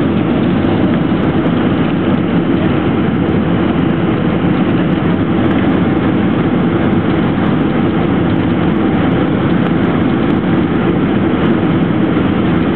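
Steady, loud engine and airflow noise of a Boeing 767-300 heard inside the cabin from a seat beside the engine, an even rush strongest in the low range.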